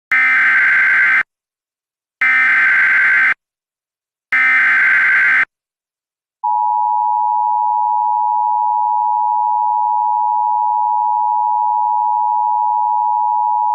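Emergency Alert System (EAS) alert heralding a severe thunderstorm warning: three one-second bursts of the screeching SAME digital header, then, about six seconds in, the steady two-tone EAS attention signal.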